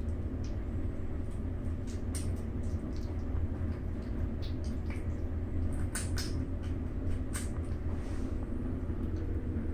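Two kittens eating wet food from ceramic bowls: quick irregular smacking, chewing and lapping clicks over a steady low hum.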